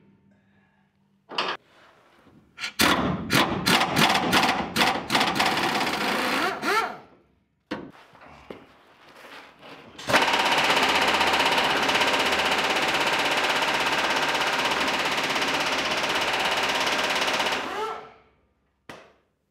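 Pneumatic impact wrench hammering on crusty, rusted bumper bolts: several short rapid bursts over about four seconds, then one long steady run of about eight seconds that winds down near the end.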